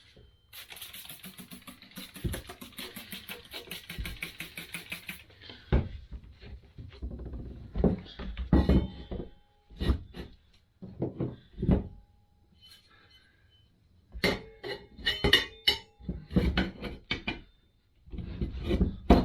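Metal tire spoons clanking and knocking against a motorcycle wheel rim while prying a tire off, some strikes leaving a short metallic ring. A stretch of hissing, rustling noise fills the first few seconds.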